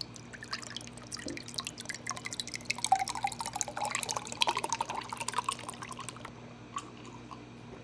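A juice drink pouring from a bottle into a glass, gurgling and splashing for about five seconds. The pitch rises as the glass fills, then the pour stops.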